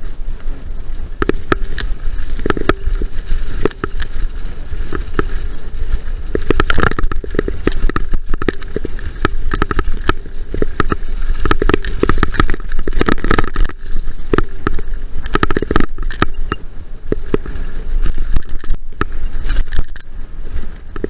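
Mountain bike descending a dirt trail at speed: the tyres rumble over the ground while the bike rattles with a quick run of clicks and knocks over the bumps, busiest in the middle. Wind buffets the camera microphone throughout.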